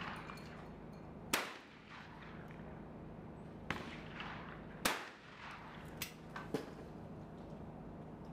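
Two shotgun shots at clay targets, about three and a half seconds apart, with a few fainter sharp cracks in between.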